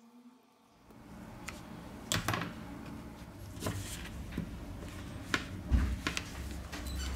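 Scattered small clicks and taps of a plastic opening pick working around the edge of an iPod touch 4G's screen, prying it from its adhesive as the player is turned in the hands. A low hum comes in near the end.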